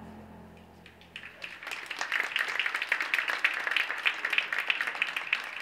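The last held note of the skating music dies away, then audience applause breaks out about a second in and builds into steady clapping.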